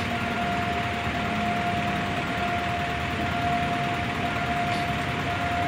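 Steady road-traffic noise with a continuous high-pitched hum running through it.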